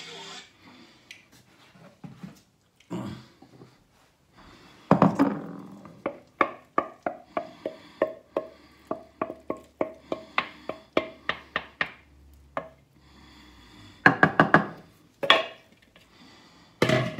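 A wooden utensil knocking against a glass mixing bowl while noodles are stirred: a quick run of about three knocks a second, each with a short ring from the glass, then a few more clusters of knocks near the end.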